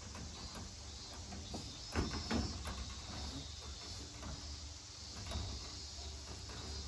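Scattered light knocks and clicks from a window screen frame being handled, the strongest about two seconds in. Crickets chirp faintly throughout.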